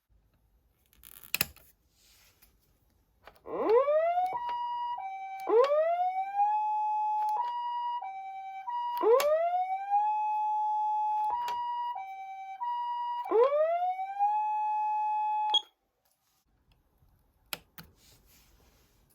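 Patlite electronic siren amplifier sounding through its speaker. It alternates a rising wail that levels off with a stepped two-tone high-low call, about three cycles, then cuts off suddenly. A single click comes shortly before it starts.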